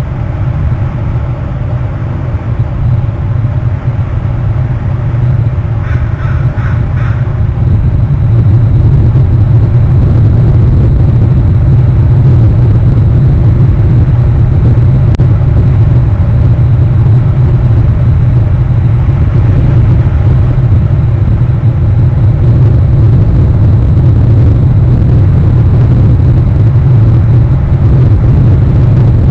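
A loud, steady low rumble that grows louder about eight seconds in, with three short calls about six to seven seconds in.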